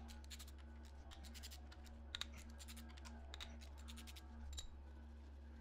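Ratchet with an 11 mm socket clicking in short, rapid runs as the camshaft bearing-cap nuts are loosened, over a steady low hum.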